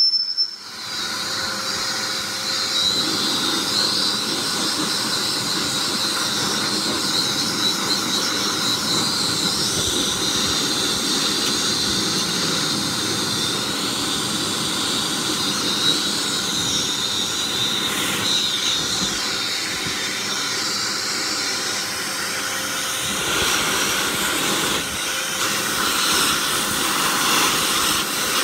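High-velocity dog dryer running steadily, a loud rushing hiss of blown air used to blast dust and fluff out of a fan heater's motor and fan blades. Its tone shifts slightly as the air stream is moved about.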